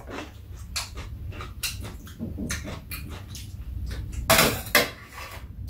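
Eating at a table: chopsticks and spoons clicking against bowls and a metal tray, with chewing sounds, and a louder short noisy burst a little past four seconds in.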